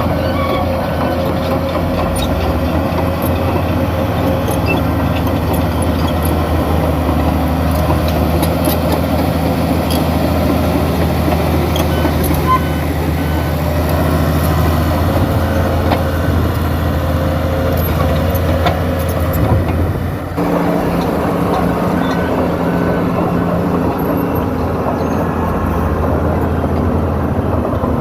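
Diesel engine of a New Holland crawler bulldozer running steadily under working load, with a dense low rumble. The sound dips briefly about twenty seconds in and then carries on.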